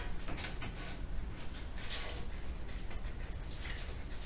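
Irregular metallic clicks and scrapes from hand tools working on rusty bull-bar bolts, over a low steady rumble.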